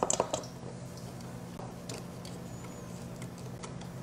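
A few quick clicks of a whisk striking a stainless steel mixing bowl while whisking a cornstarch and soda-water batter, stopping about half a second in. A steady low hum and faint stirring follow.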